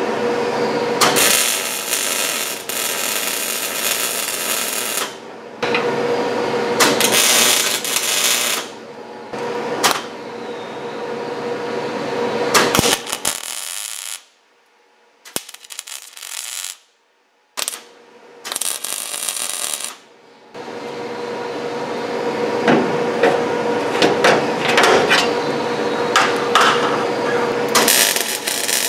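MIG (wire-feed) welding of 12-gauge steel patches onto a dump truck box's uprights: the arc crackles in several runs of a few seconds each, with short pauses and a near-silent break about halfway, then a longer run of about eight seconds.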